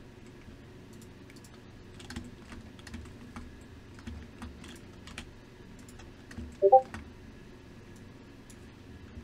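Computer keyboard keys and clicks tapping irregularly for about five seconds. One louder short sound with a brief pitched note comes about two-thirds of the way in.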